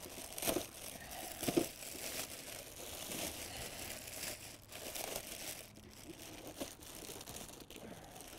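Plastic wrapping crinkling and rustling as it is handled and pulled off a packaged part, with two sharper, louder rustles in the first two seconds.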